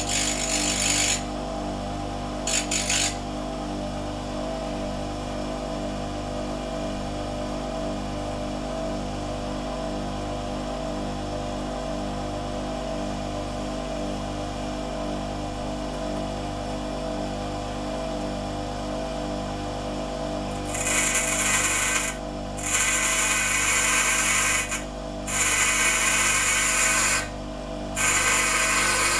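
Bench grinder motor running with a steady hum, while a steel nail is pressed against the spinning wheel in bursts of loud grinding hiss: two short ones near the start, then four longer ones of a couple of seconds each near the end.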